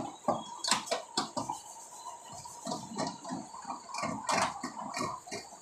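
A screwdriver working screws and knocking against the sheet-metal frame of a Toshiba e-Studio photocopier: irregular small clicks and taps, a few a second, over a faint steady tone.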